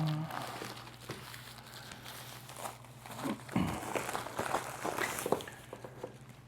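Hardware-wallet packaging being handled: irregular rustling and crinkling with light taps and clicks, busiest past the middle.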